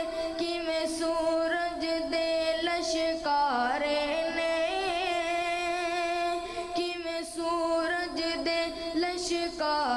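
A boy singing a Punjabi naat into a microphone: a solo voice holding long notes, with a dip in pitch about three and a half seconds in and again near the end.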